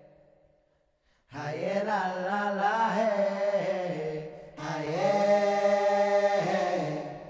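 Music: after about a second of near silence, a chanting voice sings two long wordless phrases over a low held note. The first phrase wavers in pitch; the second is held steady and fades near the end.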